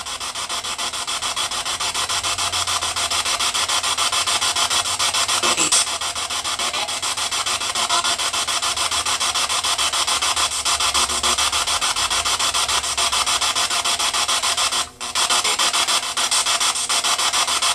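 Spirit box sweeping through radio stations: a steady rasping hiss of radio static, chopped into a fast, even flutter, with a brief dropout about fifteen seconds in.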